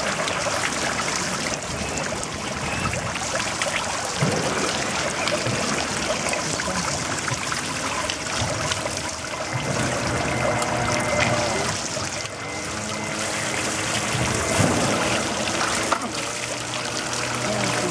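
Water trickling and running steadily.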